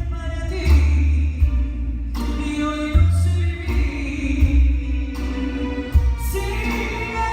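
Live band with a female lead singer performing a song over a theatre PA during a soundcheck: heavy bass, sung melody and occasional drum hits.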